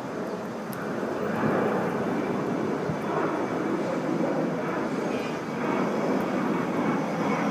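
Steady engine rumble of passing traffic, growing louder about a second in and then holding.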